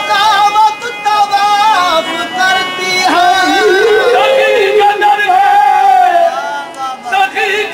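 Qawwali: a male voice singing long, wavering melodic lines over the accompanying music.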